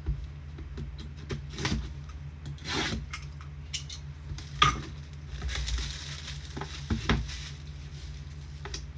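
Irregular rustling, rubbing and light clicks of packaging and trading cards being handled as a box is opened, over a steady low electrical hum.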